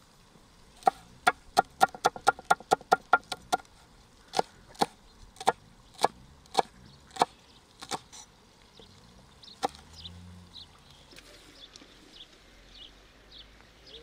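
Chef's knife slicing green chillies on a wooden chopping board: a quick run of about a dozen sharp knocks of the blade on the board, then slower single cuts, ending about ten seconds in.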